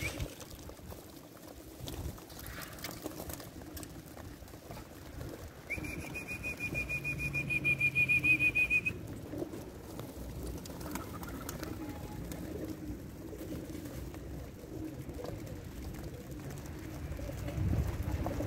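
A flock of Pakistani high flyer pigeons cooing steadily in their aviary. From about six to nine seconds in, a high whistle with a fast trill sounds over the cooing, rising a little in pitch, and is the loudest sound.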